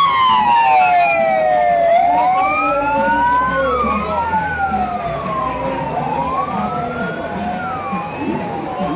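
Two emergency-vehicle sirens wailing, each slowly rising and falling in pitch and overlapping out of step with the other.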